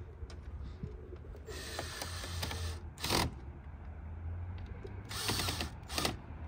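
Cordless drill driving screws to fasten a licence plate to a car's front bumper, in several short ratcheting bursts, the longest about a second and a half in and the loudest about three seconds in, with two more near the end.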